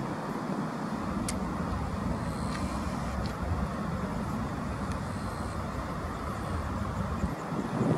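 Boeing 777-200 airliner on final approach, its jet engines at low approach thrust giving a steady, low rumble.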